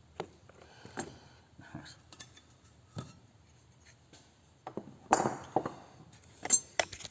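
Scattered light clinks and knocks of small hard metal objects being picked up and set down, with a louder clatter about five seconds in and a sharp click shortly after.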